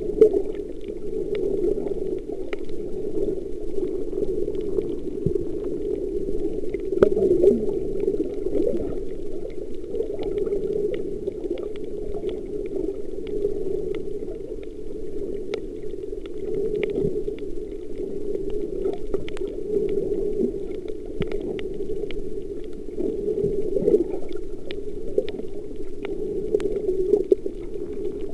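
Muffled underwater water noise, a steady low rushing with scattered faint clicks.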